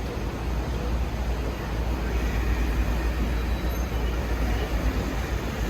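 Steady low rumble and road noise of a moving vehicle, heard from inside.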